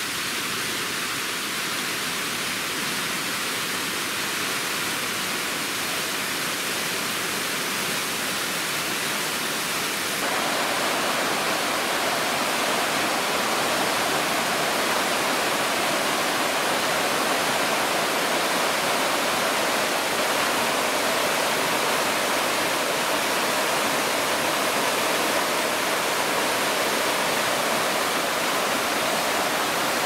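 Waterfall rushing steadily into a rock pool, a constant hiss of falling water. About ten seconds in it becomes a little louder and fuller.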